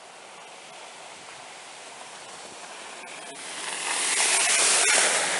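A vehicle passing on the road: its tyre and rushing-air noise swells up about three and a half seconds in, peaks and begins to fade near the end, over a steady background hiss.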